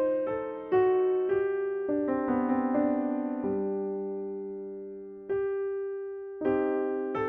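Background piano music: slow struck chords, one left ringing and fading for a couple of seconds before new chords come in near the end.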